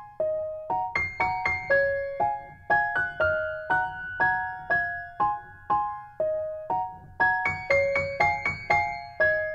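Background music: a gentle piano melody of short, quickly fading notes, about two or three a second, over a soft low accompaniment.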